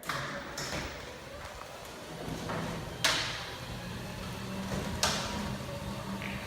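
Garage door opener set going by its button: a click, then a steady motor hum sets in about two seconds in as the door travels. There are two sharp clacks about two seconds apart.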